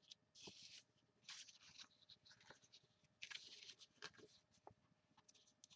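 Paper sheets rustling and sliding as they are handled, in several short, faint rustles.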